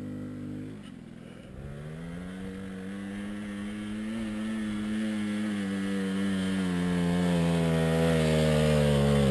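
Suzuki JR50 minibike's small two-stroke engine pulling hard up a sandy hill, its pitch rising slowly and its sound growing steadily louder as it comes closer.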